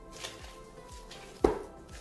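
Soft thuds of a ball of bread dough being kneaded by hand and pressed down into a plastic tub, about one a second, with the loudest thud near the end. Background music plays throughout.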